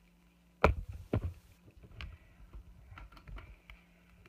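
Pliers clacking against a tempered-glass screen protector and the hard surface under it: two loud sharp clicks about half a second apart, a little under a second in, then a few fainter ticks and taps.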